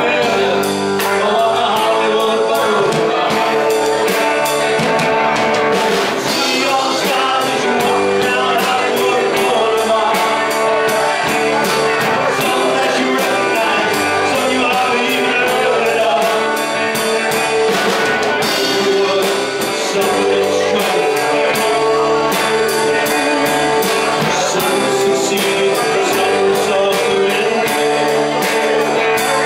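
Live rock band playing a song, with women singing lead into microphones over electric guitars and a drum kit.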